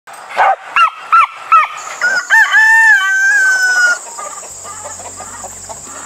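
A rooster crowing once: four short arched notes, then a long drawn-out final note that falls slightly and breaks off about four seconds in. Softer clucking follows.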